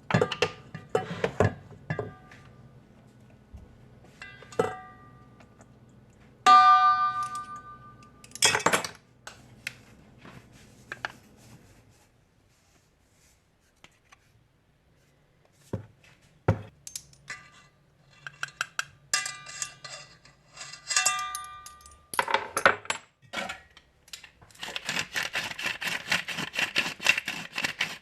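Kitchen utensils clinking, tapping and knocking against bowls and dishes, with a bowl or dish ringing out when struck about six and a half seconds in. There is a quiet stretch in the middle. Near the end a steady, rapid scratching starts up.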